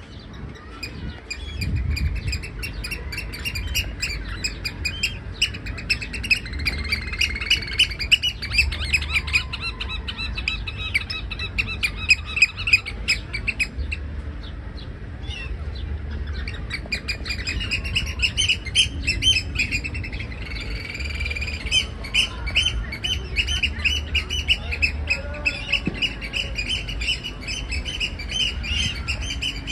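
Eurasian oystercatcher piping: high whistled notes repeated fast in long excited series, with a short lull about halfway through, over a low rumble.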